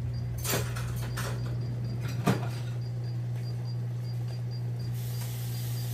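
Induction cooktop running with a steady low hum while its touch controls are pressed to set the timer, giving a few sharp clicks, the loudest about two seconds in.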